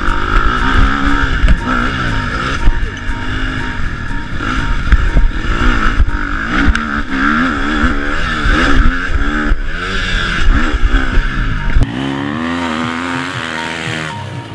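Husqvarna FC250 motocross bike's 250 cc four-stroke single-cylinder engine revving hard as it is ridden, its pitch rising and falling again and again with throttle and gear changes. About twelve seconds in the sound changes and the deep rumble drops away.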